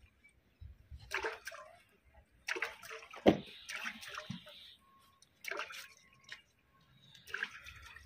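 Water splashing and sloshing in irregular bursts, with a single sharp knock about three seconds in.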